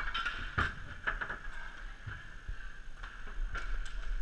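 Inline hockey play in a hall: sharp clacks of sticks and puck on the plastic tile floor. The loudest comes about half a second in, a quick cluster follows just after a second, and a couple more come near the end, over a steady background hum of the hall.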